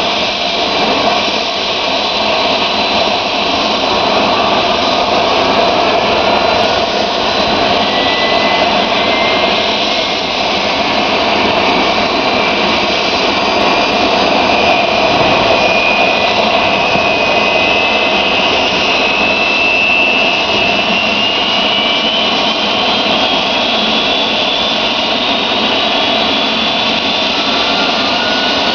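Boeing 737-200's Pratt & Whitney JT8D turbofan engines running loud and steady, a dense rushing jet noise with a thin whine that slowly climbs in pitch through the second half.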